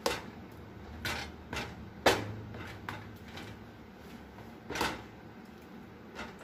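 A spoon knocking and scraping against a plastic tub of honey garlic sauce as chicken drumsticks are turned in it. About six separate knocks, the loudest about two seconds in.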